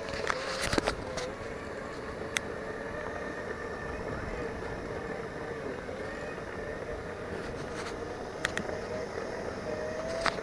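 Segway's electric drive motors whining at a steady pitch that wavers slightly and rises a little near the end, over a low rumble of noise. A few sharp clicks come about half a second in, near 2.5 s and near 8.5 s.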